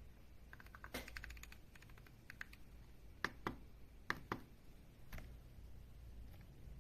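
Keys of an RK M75 mechanical keyboard being pressed: a quick run of clacks about half a second in, then a few single, spaced keystrokes.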